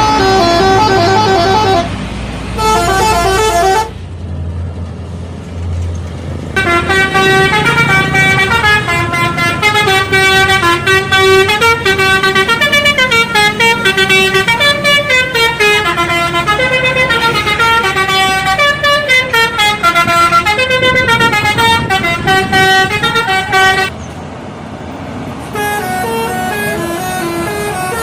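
Indonesian bus telolet horn playing fast melodic runs of quick, stepped notes. The melodies break off briefly about four seconds in, where a low engine rumble is heard, and again near the end.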